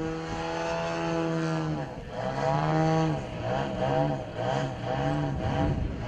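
Radio-controlled airplane's engine and propeller in flight, a steady droning tone that from about two seconds in rises and falls in pitch over and over as the plane manoeuvres.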